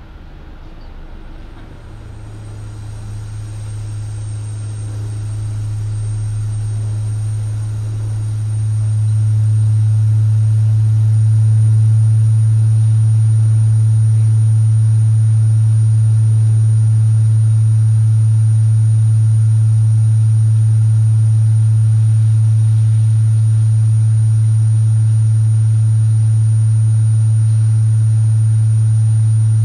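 Electronic sine tones from a sound-art installation: a low, pure hum swells in over about the first ten seconds and then holds loud and steady, with fainter higher tones above it.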